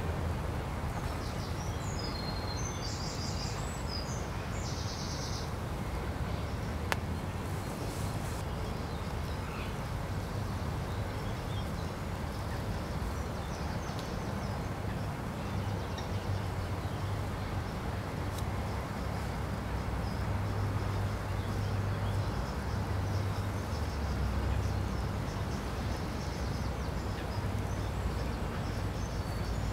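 Steady outdoor background noise with a low, wavering rumble. A few short, high bird chirps come about one to three seconds in, and there is a single faint click about seven seconds in.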